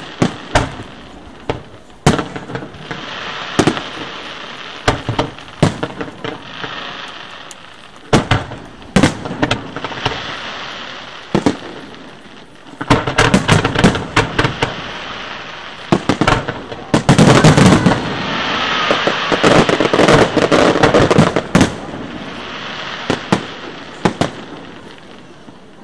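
Display fireworks going off: a stream of sharp bangs from bursting aerial shells, with crackle and hiss between them, building into a dense barrage of rapid bangs and crackling about halfway through that is loudest around three quarters of the way in, then thinning out.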